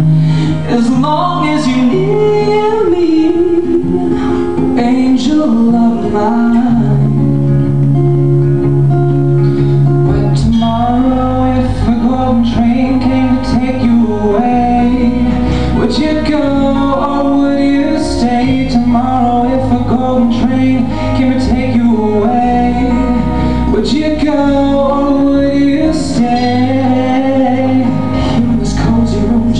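Two male voices singing a song live over acoustic guitar accompaniment. The accompaniment grows fuller in the low end about ten seconds in.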